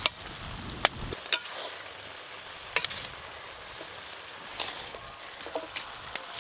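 A metal spatula stirring and turning shredded cabbage and potatoes in a large iron karahi, mixing in the spices. The spatula knocks sharply against the pan a handful of times, over a faint steady sizzle.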